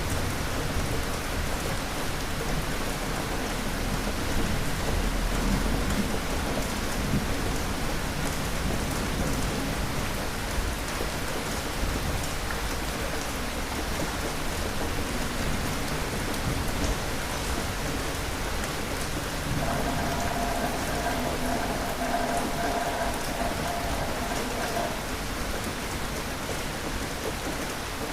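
Steady rain falling, with low rolling thunder rumbling through the first several seconds.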